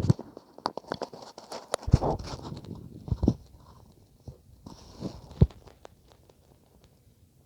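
Stomach sounds heard through a stethoscope chestpiece: irregular low gurgles and thuds mixed with scratchy clicks, the strongest about two, three and five seconds in.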